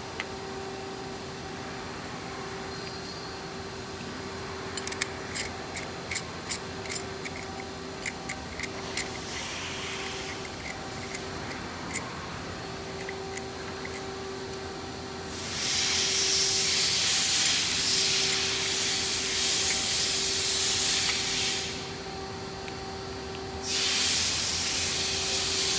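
Sharp little metal clicks and clinks as chrome handlebar riser parts, bolts and an Allen key are handled, about a dozen over several seconds. Then a loud steady hiss comes in for about six seconds, stops, and starts again near the end, over a faint steady hum.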